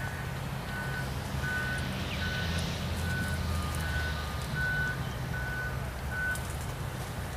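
Heavy-machinery reversing alarm beeping about twice a second and stopping about six seconds in, over a diesel engine running with a low rumble.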